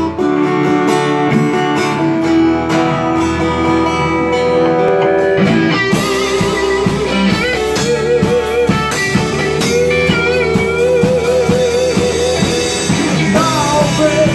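Acoustic guitar strumming under an electric guitar played through a combo amp, which takes lead lines with held notes shaken by vibrato. The strumming becomes stronger and more rhythmic about six seconds in.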